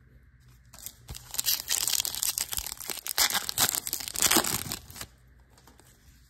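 Foil wrapper of a 2024 Bowman Baseball card pack being torn open and crinkled by hand, a dense crackling that starts about a second in and stops about five seconds in.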